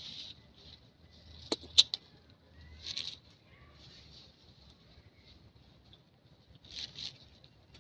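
Forest ambience: short high bird chirps several times over a faint steady high hiss, with three sharp clicks a little under two seconds in that are the loudest sounds.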